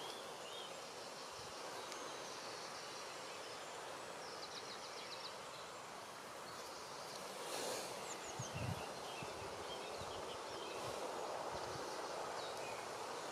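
Outdoor countryside ambience: a steady background hiss with faint high chirps, including a quick rattling series of pulses about four seconds in. A few low thumps come around eight to nine seconds in.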